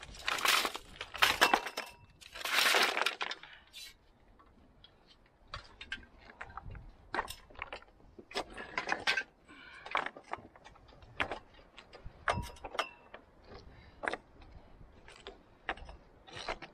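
Flat stones rattling and crashing against each other in a handled bucketful of rubble, in several loud bursts over the first three seconds. Then come scattered sharp clinks and knocks of stone on stone as stones are pried loose and lifted off the top of a dry-stone wall.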